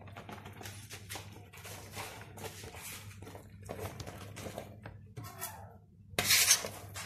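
Sliced onions scraped and tipped off a plastic cutting board into a clay dish over raw beef: a run of irregular rustling, scraping and light knocks, with a louder scrape about six seconds in. A faint steady hum lies underneath.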